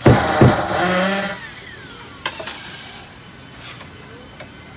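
A drill runs briefly backing out a seat-base screw, then winds down with a falling whine about a second and a half in, followed by a click and scraping as parts are handled.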